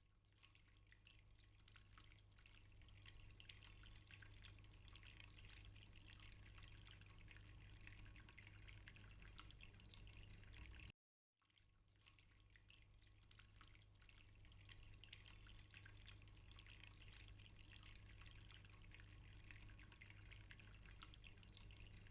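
Water trickling and dripping in a small decorative tabletop water fountain, a faint steady patter of drops. It cuts out for about half a second midway.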